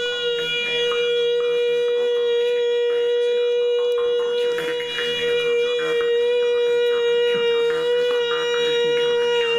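A small wind instrument held to the lips sounding one long, unbroken note at a steady pitch.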